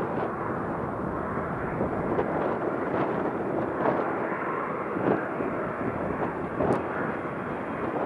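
Jet airliner engines running with a steady, dense rumble. Gusts of strong wind buffet the microphone throughout.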